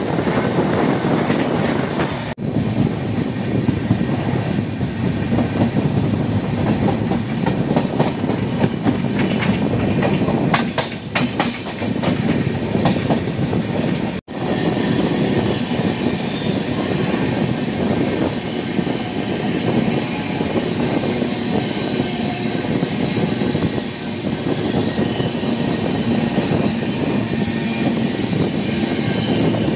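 Cheran Express passenger train running on the track: a steady rumble of wheels and carriages, with a quick run of clickety-clack over rail joints in the middle. The sound cuts out for an instant twice.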